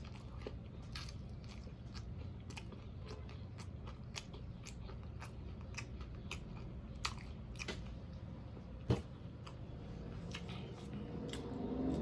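Close-miked chewing of a fried whiting sandwich on hard, crusty Italian bread: scattered crisp crunches and wet mouth clicks, with one sharper crunch near the end.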